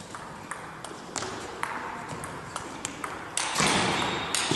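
Table tennis rally: the ball clicking off the bats and the table, about one hit every half second. From about three and a half seconds in, a louder burst of broad noise rises over the hits.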